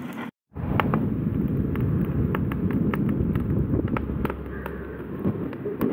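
Burning charcoal in a grill crackling and popping with many sharp snaps over a steady low rushing noise, after a brief dropout near the start.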